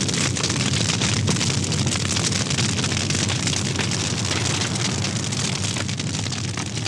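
Large fire burning: a steady crackling hiss with many fine snaps, without a break.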